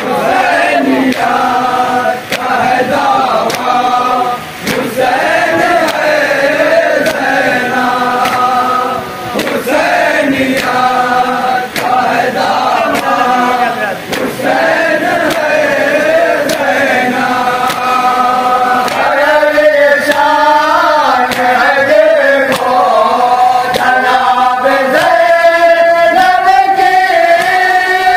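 Men chanting a Shia noha (mourning lament) in Urdu over a microphone, a lead reciter with others singing along in unison. Faint regular slaps of hands beating chests (matam) keep time beneath the voices.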